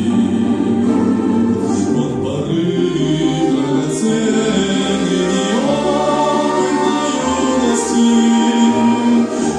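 A choir singing a slow Christian hymn in Russian with orchestral accompaniment, in long held notes.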